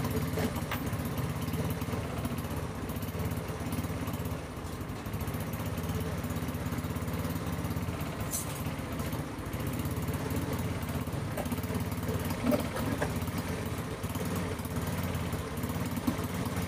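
Yamaha Mio scooter's small carbureted single-cylinder four-stroke engine idling steadily after a carburetor diaphragm swap and fuel-flow adjustment. The mechanic judges that it still does not run right on the new diaphragm.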